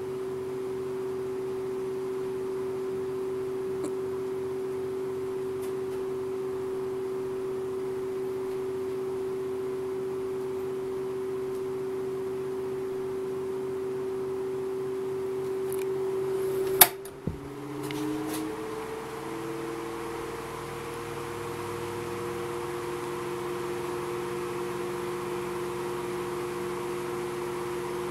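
1984 Galaxy 16-inch table fan (model 2151) running with a steady motor hum. A little past halfway comes a sharp click, after which the hum rises in pitch over a second or two and settles at a higher pitch.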